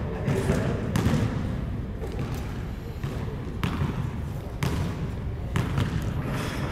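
A basketball bouncing on a gym's hard floor, a handful of sharp bounces roughly a second apart, as a player dribbles at the free-throw line before shooting.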